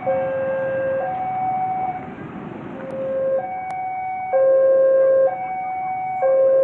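Railway level-crossing warning alarm: an electronic two-tone signal alternating between a lower and a higher tone about once a second, warning that a train is approaching or passing. It grows louder about four seconds in.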